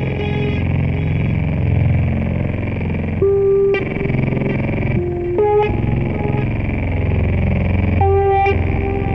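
Stage music: a steady low drone with a held, bright pitched note sounding three times, each about half a second long.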